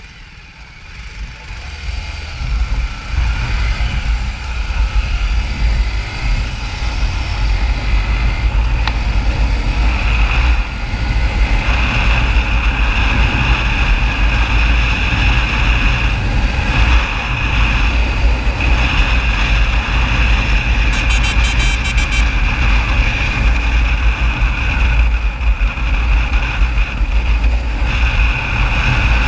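Motorcycle ridden through city traffic, heard from the rider's seat: the engine and a heavy rush of wind on the microphone build as it pulls away from a stop in the first couple of seconds, then hold steady and loud while cruising.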